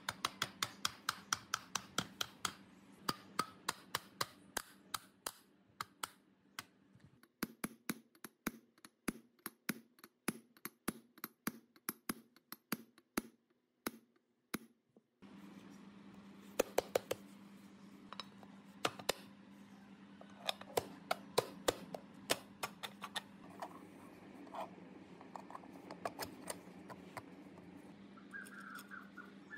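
Quick, even hammer taps on metal: a mallet driving a disc onto the motor shaft of a concrete flat-plate vibrator, several taps a second for the first half. After a cut, taps come in scattered short groups.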